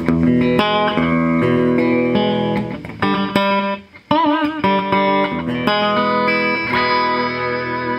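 Gretsch Chet Atkins Country Gentleman hollow-body electric guitar picked through an amp, chords and notes ringing out one after another. Around four seconds in the pitch wavers briefly with Bigsby vibrato, tied by the on-screen caption to a string sticking at the zero fret under the whammy.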